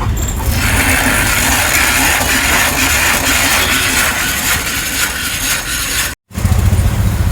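Hand-cranked shake mixer whirring steadily as it is worked. About six seconds in it cuts off abruptly, and a lower rumble of street traffic follows.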